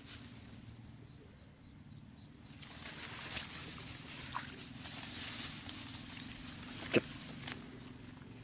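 A steady low hum runs throughout, joined from about three seconds in by a rustling hiss. There is a single sharp click about seven seconds in.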